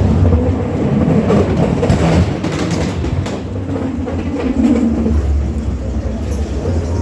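Amusement-park ride train rolling along its track: a steady low rumble with rattling and clacking of the cars.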